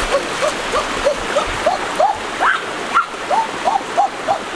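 A small animal's call repeated about three times a second, each call a short up-and-down yelp. The calls go higher in pitch in the middle and then settle back. Under them runs the steady rush of a shallow stream.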